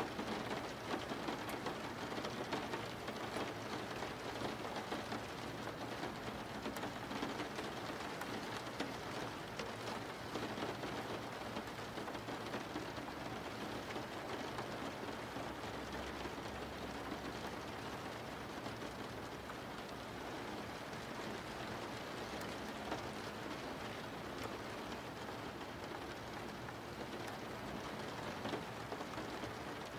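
Steady rain falling, an even hiss of raindrops with faint scattered patter.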